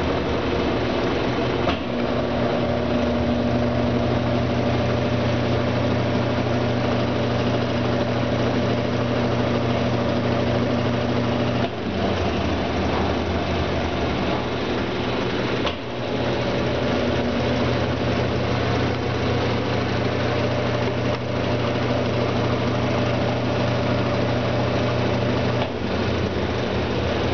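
Brastemp Ative 11 kg washing machine running with a steady motor hum, the hum briefly dipping and changing character about 2, 12, 16 and 26 seconds in.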